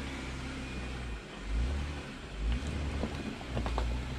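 Jeep Wrangler engine working at low revs, rising and easing in short stretches as it crawls over a rocky, washed-out trail in a tight turnaround, with a few clicks and knocks from the tyres on loose rock.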